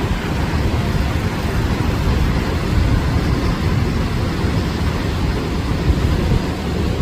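Steady rumble of ocean surf breaking on the shore, with wind buffeting the microphone.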